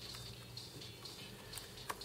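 Faint clicks and taps of small metal parts being handled as a metal cable tidy plate is pressed into place over a camera's gear, with one sharper click just before the end, over a steady low background hum.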